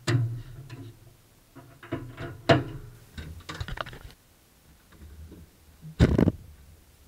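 Clunks, knocks and rattles of an old Land Rover's metal bonnet and body being handled, ending in one heavy thud about six seconds in.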